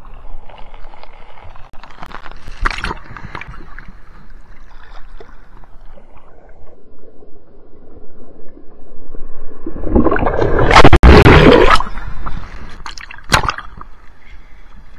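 Ocean water sloshing and gurgling against a camera held at the waterline in shorebreak surf. Just past the middle a wave breaks over it in a loud rush lasting about two seconds, and a sharp slap of water follows near the end.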